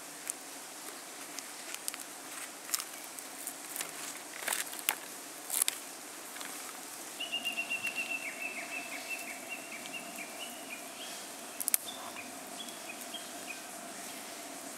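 A bird singing a fast trill of short high notes that steps down in pitch, starting about seven seconds in and trailing off into a few scattered notes. Scattered sharp clicks and light snaps come before it, the loudest one just before twelve seconds.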